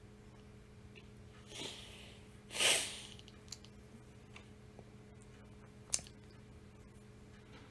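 A man sniffing through his nose twice, the second sniff louder, while choked up and fighting back tears. A small click follows a few seconds later.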